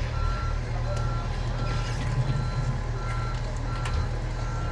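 Road-rail excavator's diesel engine running steadily, with its warning alarm beeping evenly at about three beeps every two seconds.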